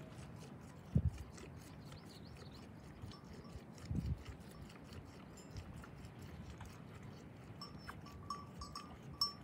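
Yak herd at pasture: two short low sounds about a second and four seconds in, then near the end a run of short, light rings from an animal bell.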